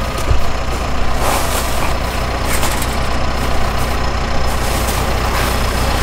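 John Deere backhoe's diesel engine idling steadily.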